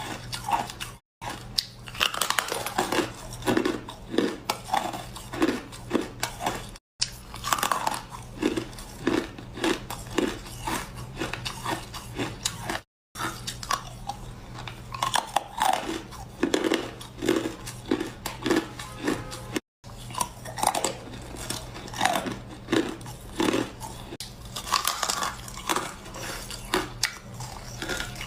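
A person biting into and chewing ice close to the microphone: sharp crunches, then steady chewing at about two to three chews a second. The sound is broken by four brief dropouts to silence.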